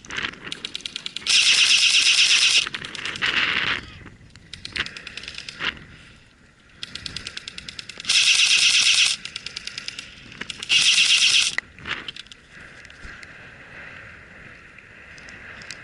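Airsoft guns firing full-auto bursts, a fast rattle of clicking shots. Three loud bursts of about a second each come near the start, in the middle and about two-thirds in, with quieter, shorter bursts between them.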